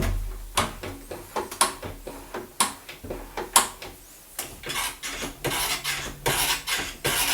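Interior door lever handle pressed and released over and over. The latch and return springs click about once a second, followed by a quicker run of clicking and rubbing. The mechanism has just been greased with Litol lithium grease and shimmed against play.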